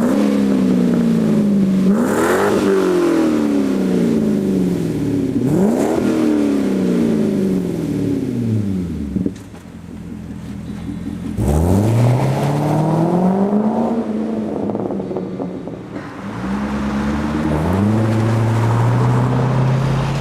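C6 Corvette V8 revving through a Muffler Tech exhaust: a series of throttle blips, each pitch jumping up sharply and sinking slowly back, with the engine settling briefly to a quieter idle near the middle. Near the end the revs climb and are held at a steady raised speed.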